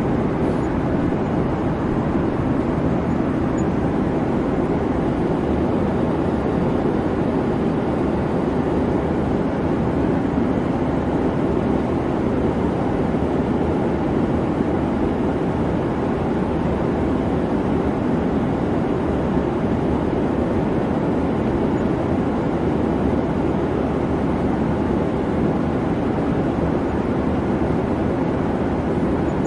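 Airliner cabin noise in flight: an even, unchanging rush of engine and airflow.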